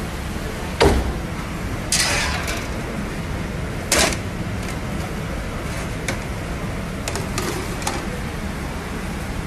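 Metal clanks and knocks from a charcoal-fired grill oven being worked, its door and racks handled as meat is loaded. The loudest knocks come about one, two and four seconds in, followed by lighter ticks, over a steady low hum.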